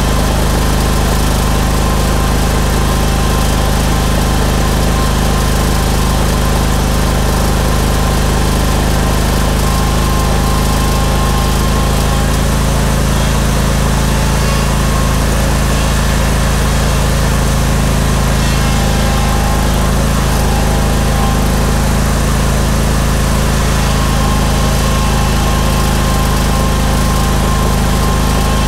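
Briggs & Stratton Vanguard 21 hp V-twin engine on a Steel Green sprayer-spreader running steadily at a constant speed.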